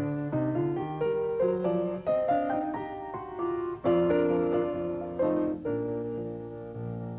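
Closing music on piano: a gentle melody of single notes over chords. A full chord is struck about four seconds in, and a last chord near the end is left ringing and dying away.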